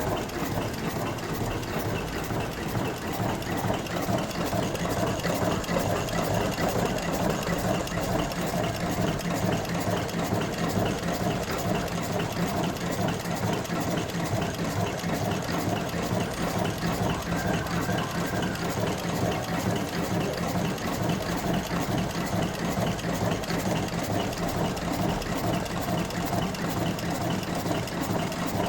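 Mechanical cigarette-rolling machine running steadily, with a fast, even mechanical clatter over a constant hum.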